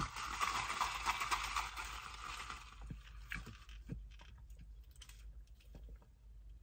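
Soft eating and drinking noises: a rustling hiss for the first three seconds, then faint clicks and small sips as Sprite is drawn through a plastic straw.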